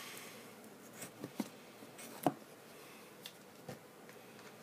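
Cardboard phone box being opened by hand, its lid lifted off: faint scraping and a few light taps and clicks, the sharpest a little over two seconds in.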